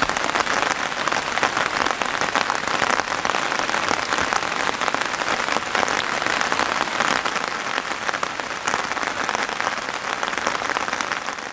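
Steady rain falling, a dense, even hiss of drops.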